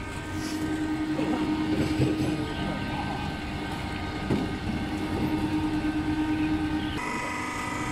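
Double-screw palm oil press running under load, its 30 kW electric motor and gearbox giving a steady mechanical drone with a steady hum. Near the end the tone of the machine noise changes abruptly.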